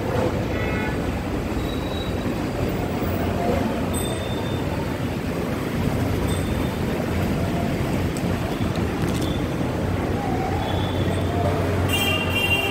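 Steady, noisy rumble of a large cow-shed hall's background din, with a few faint short high tones now and then and a brief cluster of them near the end.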